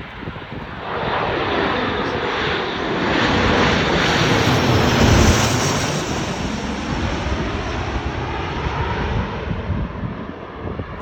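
Bombardier regional airliner passing low overhead on approach. Its engine noise swells about a second in, peaks around five seconds in, then slowly fades.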